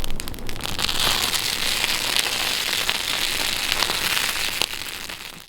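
Tough salal leaves burning in a campfire, crackling with a dense run of sharp pops. The crackle swells about a second in, eases off near the end and then cuts off suddenly.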